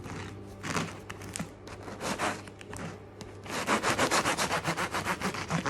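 A serrated bread knife sawing through the crust of a freshly baked sourdough loaf: uneven rasping strokes at first, then quick, steady back-and-forth strokes, about seven a second, from a few seconds in.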